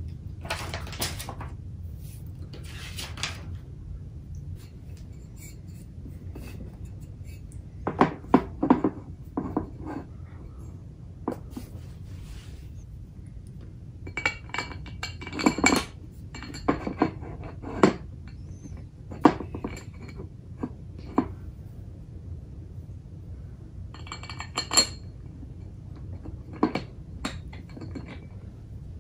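Aluminium VESA adapter plate and its screws clinking and scraping against the metal back of an Apple LED Cinema Display as the plate is fitted and screwed on: scattered metallic clinks in small clusters, a few ringing briefly.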